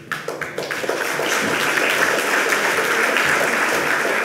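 Audience applauding, starting with a few scattered claps and building within about a second to steady applause.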